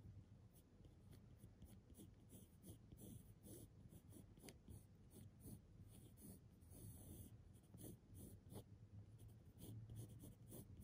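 Faint scratching of a pencil drawing short, irregular strokes on paper, over a low steady hum.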